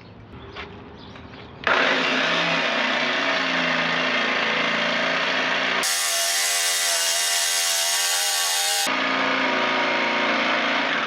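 Porter-Cable jigsaw with a fine-tooth metal-cutting blade starting up about two seconds in and cutting lengthwise through the thin steel wall of a gas water heater tank, running steadily until it stops right at the end.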